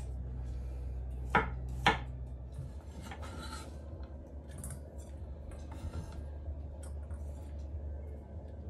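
Kitchen knife chopping garlic cloves on a bamboo cutting board, with two sharp knocks about a second and a half in. Softer scraping and light taps follow as the chopped garlic is gathered up and dropped into a stainless steel bowl.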